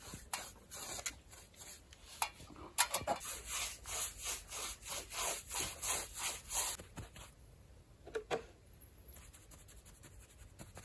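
Paintbrush strokes spreading tar oil over old wooden log walls: a quick, even scrubbing rhythm of about three strokes a second. The brushing stops about seven seconds in, leaving only a couple of faint knocks.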